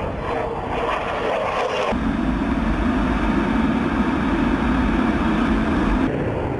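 F-16 fighter jet in flight: jet-engine noise with a steady tone, heard from the ground. About two seconds in it switches to the steady low rumble of engine and rushing air heard inside the cockpit.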